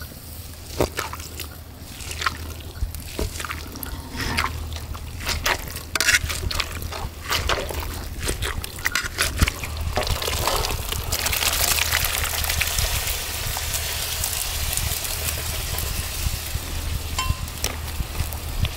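Masala gravy cooking in a pan: a spoon clicks and scrapes against the pot through the first half, then from about ten seconds in comes a steady sizzling, bubbling hiss of liquid in the hot pan.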